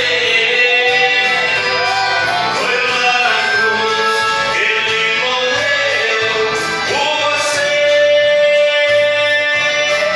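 Male singer singing a gospel song into a microphone, with instrumental accompaniment, holding one long note about seven seconds in.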